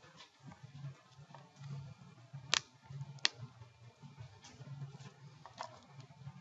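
Quiet room tone with a faint low hum, and two sharp clicks about three-quarters of a second apart near the middle.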